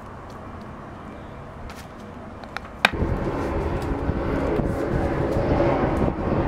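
Faint clicks and scrapes of a spoon among rice and leaves. About three seconds in, a sharp click is followed by a sudden much louder, steady low rumbling drone that builds slightly.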